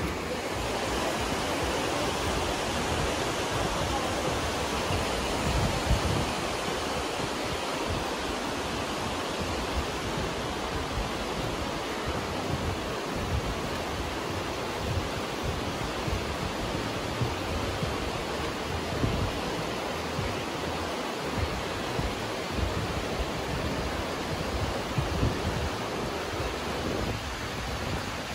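Aare river rushing through its gorge: a steady, even noise of fast-flowing water, with an uneven low rumble underneath.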